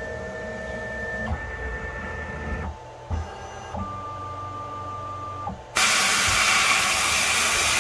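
Grizzly G0704 CNC mill running an automatic tool change. The Nema 34 stepper motors whine steadily as the spindle travels to and from the tool rack, with a few low knocks. About six seconds in comes a loud, even hiss: the spindle air blast clearing chips from over the tool.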